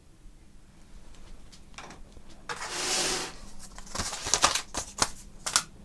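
Hands handling a cardboard accessory box and its plastic-bagged contents. A rustling scrape comes about halfway in, then a run of sharp clicks and taps.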